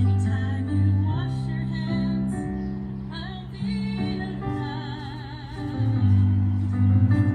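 Live piano music, held chords changing every second or so, with a voice holding one wavering note about five seconds in.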